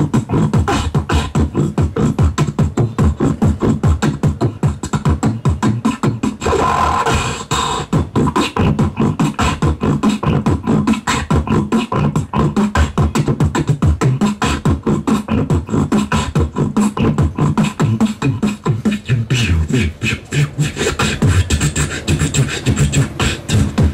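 Solo beatboxing into a close-held handheld microphone: rapid kick, snare and hi-hat mouth percussion over strong bass, with a longer held sound about seven seconds in.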